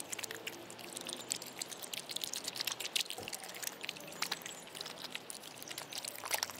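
Yellow Labrador retriever eating kibble from a bowl of water, crunching and slurping in a rapid, irregular run of wet clicks.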